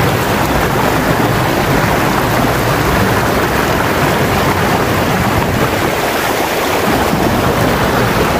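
Shallow, fast-flowing river rushing over stones close by: a loud, steady rush of water.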